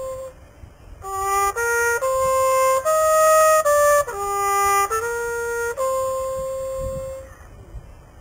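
Solo trumpet playing a slow melody unaccompanied: a held note breaks off just after the start, then a phrase of several notes begins about a second in and closes on a long held note, dropping away near the end.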